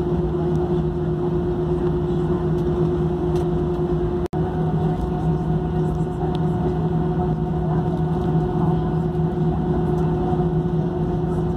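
Steady cabin hum of an Airbus A319 taxiing with its jet engines at idle: a low drone with a few steady tones. It cuts out for an instant about four seconds in.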